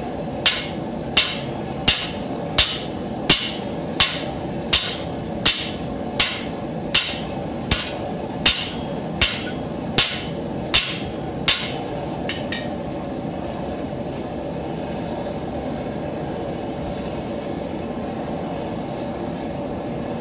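A hand hammer forging red-hot plow-share steel on an anvil: about sixteen evenly paced ringing blows, roughly one every 0.7 seconds, stopping about twelve seconds in. A propane gas forge's burner rushes steadily under the blows and goes on alone after them.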